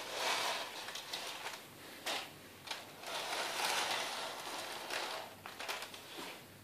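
Tower of plastic toy bricks sliding and scraping across a wooden floor in several pushes, with a couple of short knocks about two seconds in.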